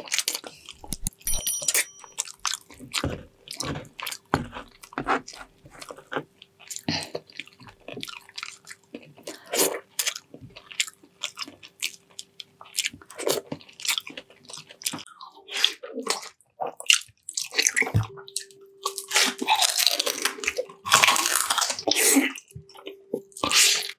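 Close-miked chewing and lip smacking of a person eating soft braised pig's trotters: a steady run of short, wet clicks, with a longer, louder stretch of chewing around twenty seconds in.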